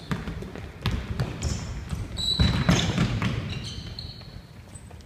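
Basketball bouncing on a court floor, a series of sharp thuds during dribbling and play, loudest about halfway through, with a few short high squeaks.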